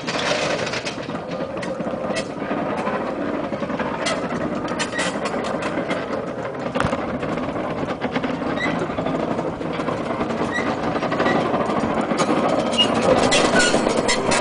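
Small battery-electric shunting locomotive running slowly while hauling a flat wagon over rough track: a steady mechanical running noise with scattered clicks and knocks from the wheels on the rails, growing louder near the end as it comes closer.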